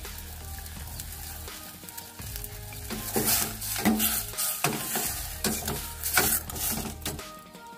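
Chicken livers sizzling in a stainless steel pot as a ladle stirs them. From about three seconds in until near the end, the ladle scrapes and knocks against the pot in a quick run of loud strokes.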